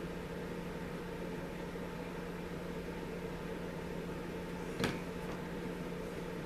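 Steady mechanical hum at two fixed pitches over a background hiss, with a single sharp click about five seconds in.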